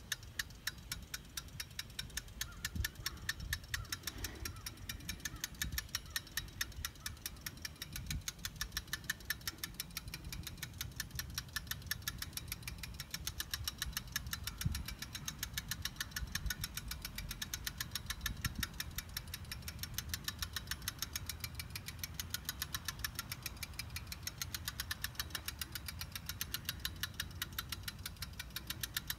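Hand-cranked, boat-style ratchet winch clicking rapidly and evenly, several clicks a second, as it is cranked to raise a 70-foot aluminium vertical antenna.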